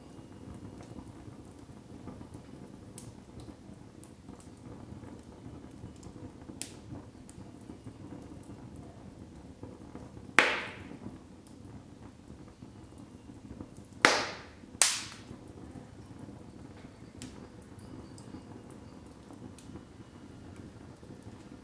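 Wood logs burning in a fireplace: a steady low rush of flame with scattered faint crackles. There are three loud pops, one about halfway through and two less than a second apart a few seconds later.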